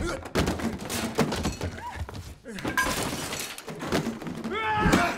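Film fight sound effects: a rapid run of hits and crashes, with things smashing and breaking, and a man yelling near the end.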